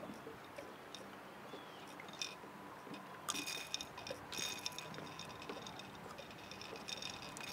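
Faint wet squishing and small clicks of hands working a hook free from a catfish's mouth, with a short burst of crackling about halfway through.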